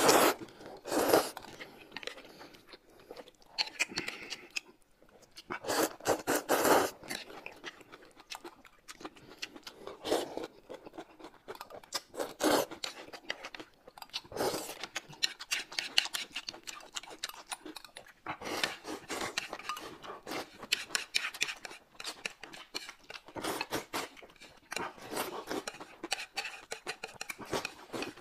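Close-up eating sounds: loud slurps of noodles and broth in separate bursts, with chewing and small clicks between.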